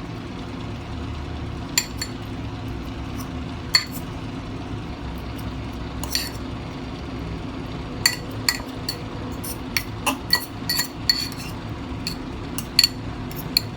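Light clinks of dishes and tableware, a few at first and then many in quick succession from about halfway through, over a steady low hum.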